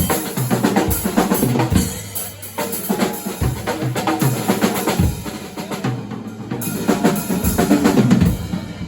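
Music with a drum kit playing a beat, bass drum and snare hits recurring over other instruments.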